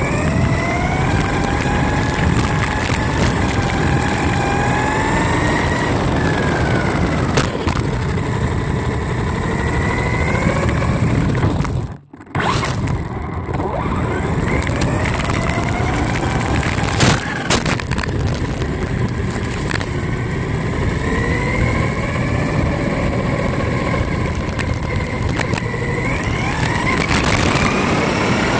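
Onboard sound of a Traxxas Slash 4WD 1/10-scale electric RC truck at speed: the motor and drivetrain whine rising and falling in pitch with the throttle over a heavy rumble of tyres and vibration from rough pavement. There are a few sharp knocks from bumps, and the sound briefly cuts out about twelve seconds in.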